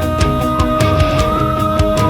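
Background music: a heavy, driving rock track with fast, regular drum hits and sustained distorted guitar.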